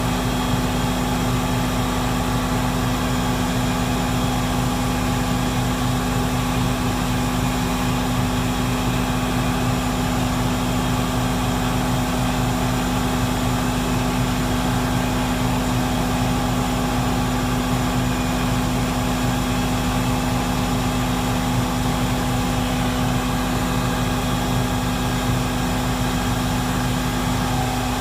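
Idling truck machinery running with a loud, steady droning hum that holds several fixed pitches.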